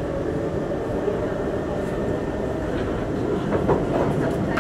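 Singapore MRT train running, heard from inside the passenger carriage: a steady rumble of wheels and running gear, with a few short clatters near the end.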